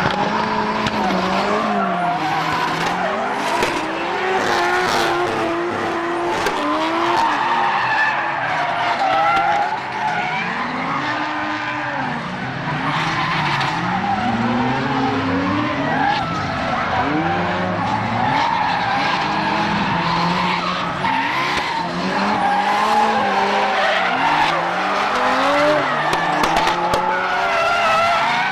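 Drift cars sliding: engines revving up and down over and over on the throttle, with continuous tire squeal.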